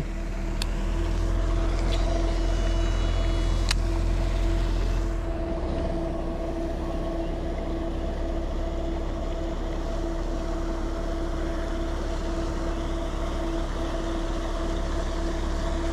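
A steady machine hum with a low rumble underneath, which eases a little about five seconds in. Two sharp clicks sound in the first four seconds.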